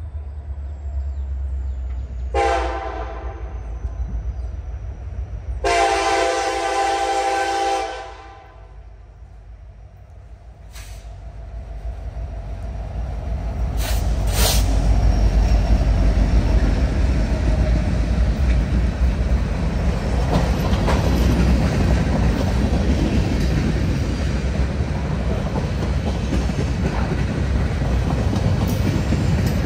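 Freight train diesel locomotive sounding its multi-chime air horn twice, a short blast and then a longer one, over the low rumble of its engines. The train then rolls past, its wheels clattering steadily on the rails as the cars go by.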